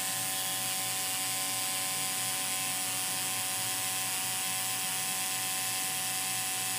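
Tattoo machine running with a steady, even buzz while its needle works into the skin of the wrist.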